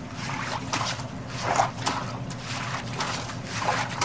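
Water sloshing and swishing in a large wok as it is scrubbed out by hand, in repeated strokes, over a steady low hum.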